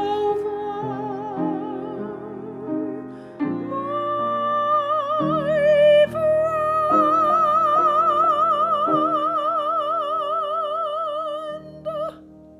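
Operatic soprano voice singing with a wide vibrato over held accompanying chords. The song ends on a long, high sustained note that starts about six seconds in.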